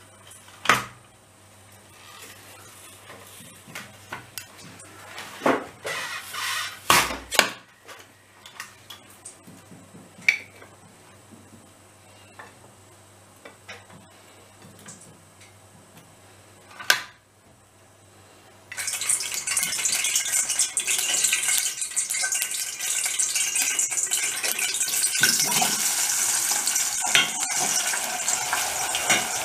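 Several sharp clacks from a hand-pushed plunger-type French fry cutter as raw potato is pressed through its blade grid into sticks. About two-thirds of the way in, a loud, steady sizzle takes over: potato sticks deep-frying in hot oil in a steel pot.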